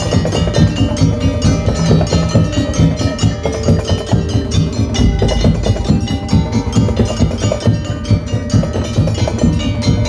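Madurese tong-tong (ul daul) percussion ensemble playing a fast, dense rhythm: wooden slit drums and drums struck over ringing pitched percussion, without a pause.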